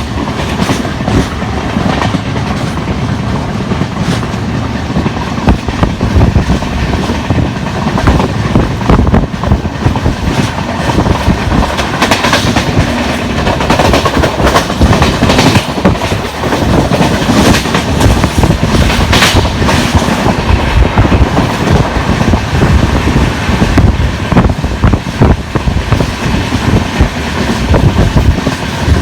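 A passenger express train with LHB coaches passing through at speed, wheels clattering over the rails with repeated sharp knocks from flat spots worn on its wheels.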